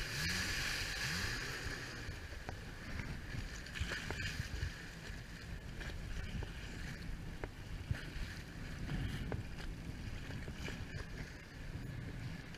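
Jet ski running over choppy water: a steady rush of wind and spray over a low engine rumble, with scattered small knocks of the hull on the chop.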